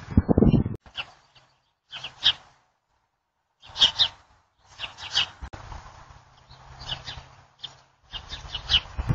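Small birds chirping outdoors in short, separate high calls about every second or so, with brief silent gaps between them. A loud rushing noise fills the first second.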